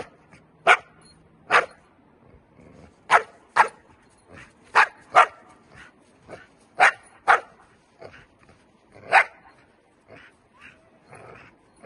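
Young Dutch Shepherd barking: about ten short, sharp barks at an uneven pace of roughly one a second, with fainter barks between them. This is guard barking at a threat object while the dog shields its handler.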